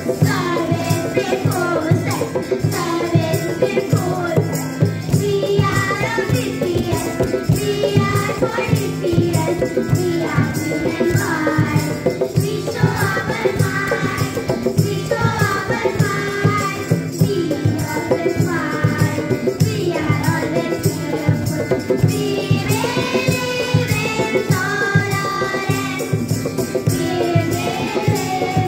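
A group of young children singing a song together, with an instrumental accompaniment and a steady, fast percussion rhythm.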